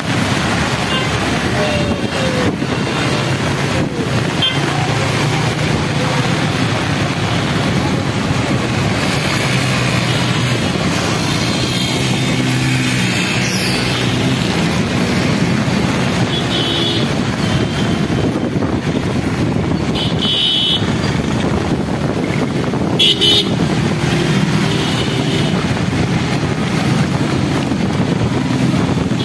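Motorcycles and other vehicles running through a flooded street, with a steady rush of rain and water spray. Short horn toots sound three times in the second half, the middle one the longest.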